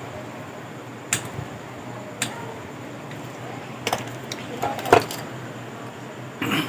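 Scattered sharp metallic clicks and clinks of small tools and electronic parts being handled on a workbench, with a cluster of them about four to five seconds in, the loudest near the five-second mark. A low steady hum runs underneath.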